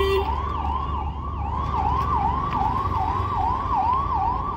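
Electronic emergency-vehicle siren in a fast yelp, its pitch swooping up and down about three times a second. It sounds over the low rumble of city traffic.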